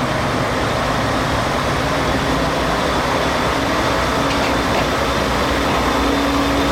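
Steady rumble and hum of a train standing at or moving along a station platform, with no sharp events.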